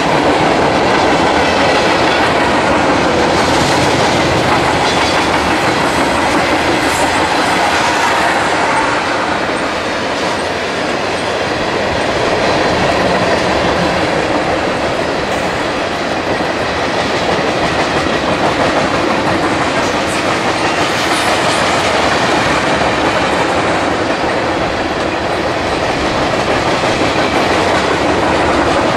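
Freight train cars rolling past, a steady, continuous noise of steel wheels running over the rails.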